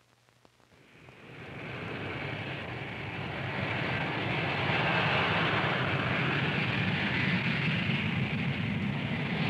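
Jet aircraft flying past: a rushing engine noise that rises from about a second in, swells over the next few seconds, then holds steady.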